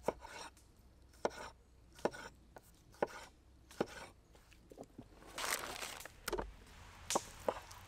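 Knife slicing through tomatoes and knocking on an end-grain wooden cutting board, a sharp knock about once a second. There is a longer scraping sound about five and a half seconds in, then three more quick knocks.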